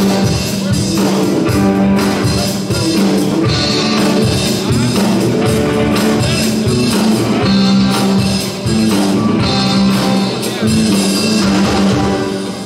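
Live rock band playing amplified electric guitar, bass and drum kit, with a steady beat; the song falls away near the end.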